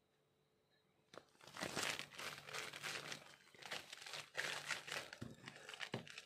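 Silver metallized plastic mailer crinkling and rustling as it is handled and cut open with scissors, starting about a second in, with a couple of sharp clicks near the end.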